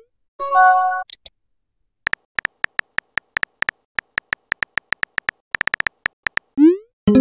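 Texting-app sound effects: a short tonal chime just after the start, then about four seconds of quick keyboard tap clicks as a message is typed, then a rising swoosh as it is sent, with another chime starting right at the end.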